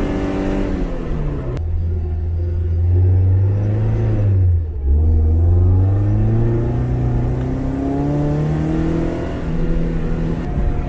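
Lada's swapped BMW M44 1.9-litre four-cylinder under hard acceleration: its revs fall away, and a single sharp crack comes about a second and a half in. After a brief dip the engine note climbs steadily for several seconds as it pulls through a gear, then drops again near the end.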